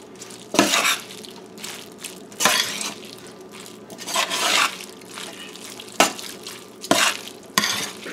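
Boiled macaroni being stirred in a stainless steel bowl: about six separate noisy strokes of the utensil through the pasta and against the metal, with quieter stirring between.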